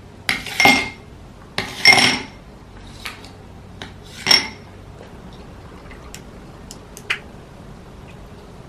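Dishes and cutlery clinking: a few sharp clinks that ring briefly, the loudest about two seconds in, then fainter small ticks.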